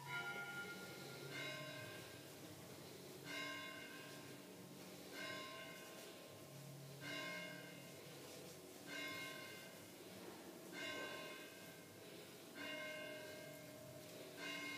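Bell-like chimes struck over and over, about one every two seconds, each ringing out and fading over about a second.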